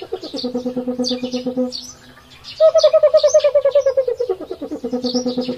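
Bird-like chirping and trilling calls from a cartoon soundtrack: a fast-pulsing call that falls in pitch and settles on a lower held tone, heard twice, with short high chirps over it.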